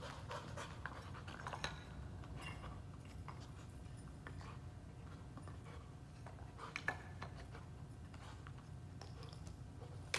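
A Nova Scotia duck tolling retriever panting and sniffing as it searches a pile of scent articles, with faint scattered clicks.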